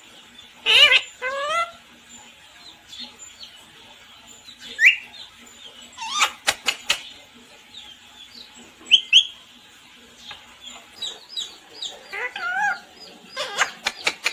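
Pet parrot calling in short squawks and whistles, with a quick run of small chirps near the end. A few sharp clicks come about six to seven seconds in.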